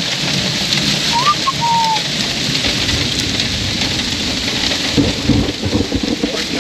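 Steady rain coming down, with a short bird call about a second in and a low rumble of thunder from about five seconds in.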